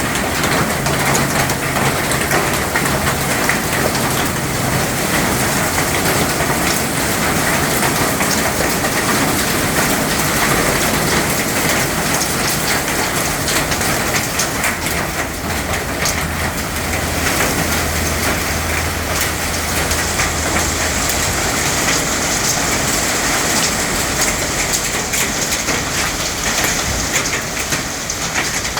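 Heavy storm downpour with a dense, steady patter of drops striking surfaces.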